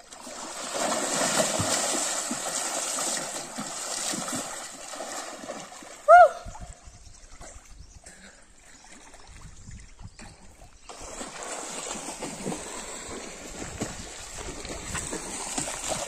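Forest stream water running and splashing, with a short loud pitched cry about six seconds in; the water noise drops away for a few seconds after it and comes back near the end.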